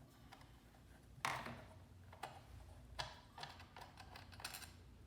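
Light clicks and clacks of a screwdriver and small metal parts handled during disassembly of a portable bandsaw's switch housing, the sharpest about a second in and a few more spaced out after.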